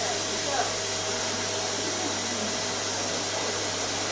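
Vacuum cleaner running steadily with an even whir and hum, with a brief louder sound about half a second in.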